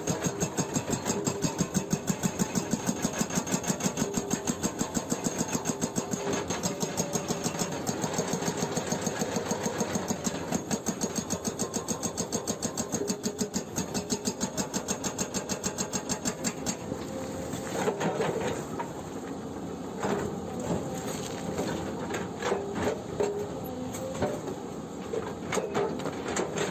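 Excavator-mounted hydraulic breaker hammering rock in a rapid, steady stream of blows over the excavator's running engine. The hammering stops about two-thirds of the way through, leaving the engine running with scattered irregular knocks.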